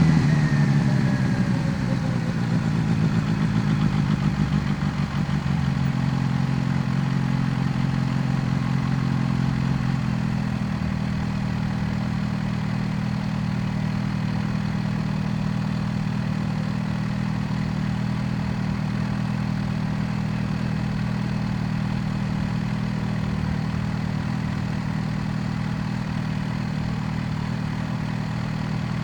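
Kawasaki Z H2's supercharged inline-four engine dropping in pitch as it comes off the throttle and slows, then settling into a steady idle from about ten seconds in.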